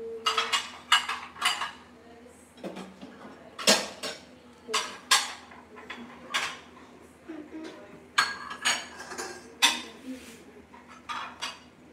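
Dishes and cutlery clinking and clattering as they are handled: an irregular run of short, sharp knocks and rattles.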